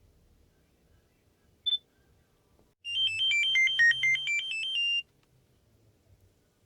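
A Nokia 6230b phone's speaker gives a single short beep, then about a second later plays a ringtone: a quick run of about sixteen electronic notes that dips in pitch and climbs back, lasting about two seconds and cutting off suddenly.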